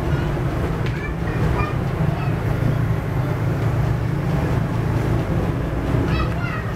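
Steady low roar of a high-pressure LPG gas burner under a wok, with banana cake batter frying in the oil.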